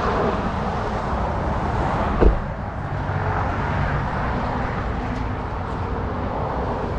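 An engine running steadily, a low rumble with a faint hum, and a single thump a little over two seconds in.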